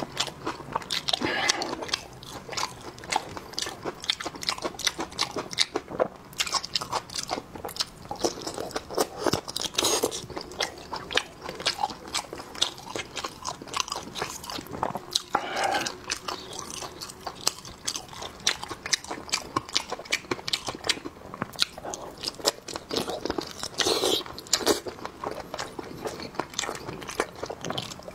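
Close-miked eating of sheep blood sausage: steady biting and chewing with dense, irregular wet smacks and clicks of the mouth throughout.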